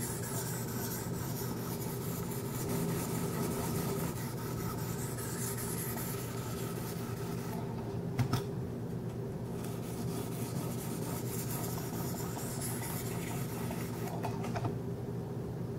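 Fine 1200-grit ceramic stones of a Wicked Edge guided sharpener rubbing lightly along a 14C28N steel knife edge in repeated strokes, a soft scraping hiss. A steady low hum runs underneath, and there is one sharp click about eight seconds in.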